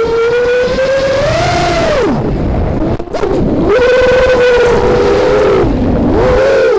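FPV drone's electric motors and propellers whining, recorded on the drone's own onboard camera, with the pitch following the throttle: it climbs about a second and a half in, drops away just after two seconds, comes back just before four seconds, holds, and dips once more about six seconds in. Wind rushes past underneath.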